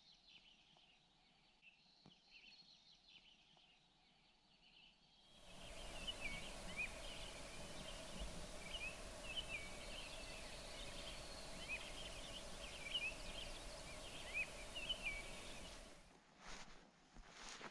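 Birds calling at dawn: many short chirping notes over a steady hiss. The sound starts suddenly about five seconds in, after near silence, and cuts off shortly before the end.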